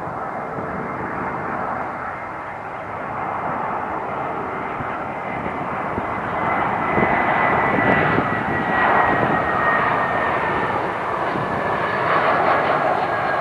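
Airbus A320-232 airliner on final approach, its IAE V2500 turbofans running at approach power. The sound grows louder as it nears, with a high fan whine coming in about six seconds in and slowly falling in pitch.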